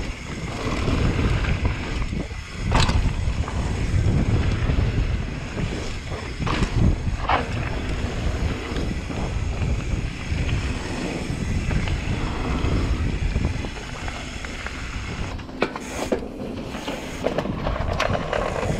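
Mountain bike ridden fast downhill on a dirt and gravel trail, heard through an action camera's microphone: a steady rush of wind on the mic and rumble of tyres and bike over the ground. Sharp knocks from bumps come about three seconds in and again around seven seconds, with a cluster of clattering clicks near the end.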